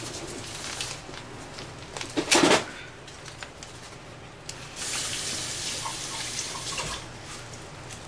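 A mailing envelope being torn open by hand: a short loud rip a little over two seconds in, then a few seconds of crinkling and rustling of the packaging.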